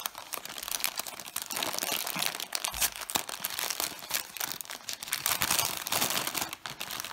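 Brown kraft-paper bag crinkling and crackling continuously as hands pull its taped top open and crumple the paper.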